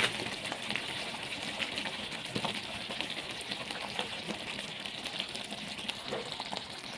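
Thick curry sauce simmering in a stainless pan, a steady crackle of small bubbles popping at its surface.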